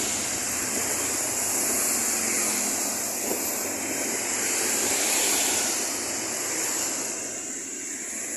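Steady hiss of rain and traffic on a wet road, swelling a little now and then as vehicles pass.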